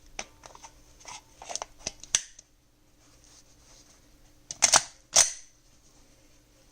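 Handling noise from an unloaded Glock 19X pistol: a run of small clicks and taps, then two loud sharp clacks about half a second apart.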